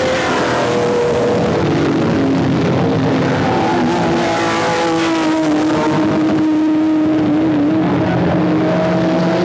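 Several racing cars' engines running at once, their notes overlapping at different pitches and shifting up and down as the cars pass through a corner.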